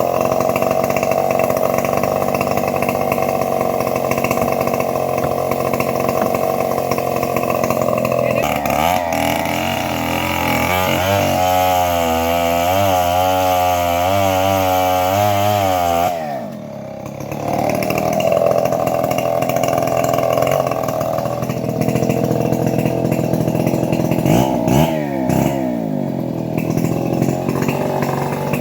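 Chainsaw engine running hard while cutting teak wood. Its pitch wobbles up and down under load, drops away briefly about halfway through, then revs back up and keeps cutting.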